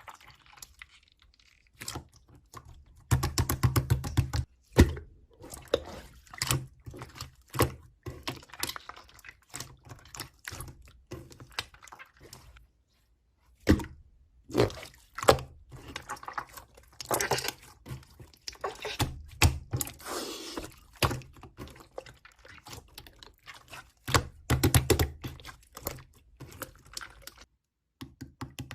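Irregular close-up taps, clicks and knocks, some with a dull low thud, as of objects being handled, with a brief pause about halfway through.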